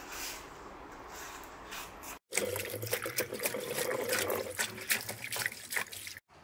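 Water splashing and sloshing in a stainless steel bowl in a kitchen sink as fresh peanut plants, roots and pods still on, are swished by hand to rinse off the soil. It comes in quick, irregular splashes after a brief break about two seconds in; before that there is only a faint steady hiss.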